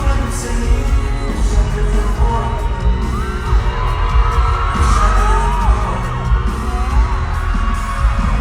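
Pop music with a singing voice played loud over a concert sound system, with a heavy bass beat.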